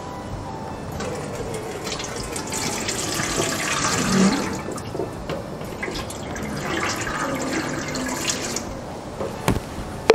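Water poured from a plastic jug into an aluminium steamer pot, in two pourings, the second about six seconds in. A short knock near the end.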